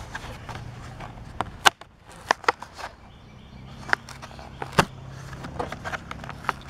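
Plastic blister pack of a Hot Wheels die-cast car crackling and snapping as it is peeled away from its card, the card backing tearing. Irregular sharp cracks, loudest about two and five seconds in, over a low steady hum.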